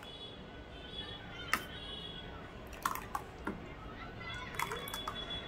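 Spoon stirring a thin yogurt and gram-flour batter in a mixing bowl, with wet squishing and a few scattered clicks of metal against the bowl.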